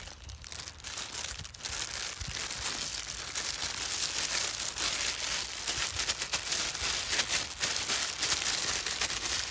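Thin disposable plastic gloves crinkling continuously as the hands squeeze seasoned fish paste around a bundle of long beans. The crinkling is a little quieter in the first second or so.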